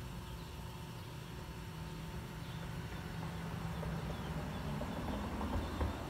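Low rumble of a vehicle engine running nearby, swelling toward the end, with a few faint high bird chirps.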